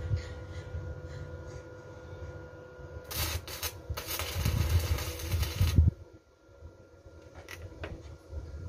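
Electric arc welding on a steel pipe: a few short crackling strikes about three seconds in, then a steady arc crackle for about two seconds that cuts off suddenly.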